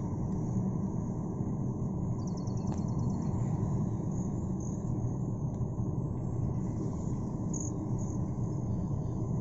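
Steady low rumble of a vehicle driving along an asphalt road, tyre and engine noise running evenly. About two seconds in, a brief run of high-pitched chirps, with a few more faint high chirps later.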